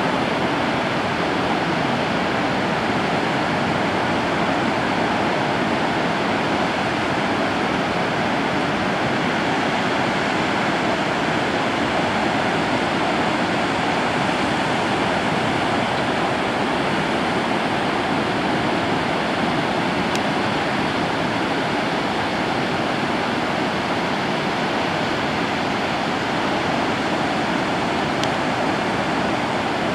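Ocean surf breaking on a sandy beach: a steady, unbroken rush of waves.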